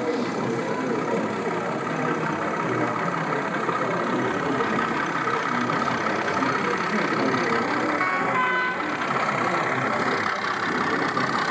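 Model diesel locomotive running with a steady engine sound under the murmur of an exhibition-hall crowd, with a brief series of short tones a little after eight seconds in.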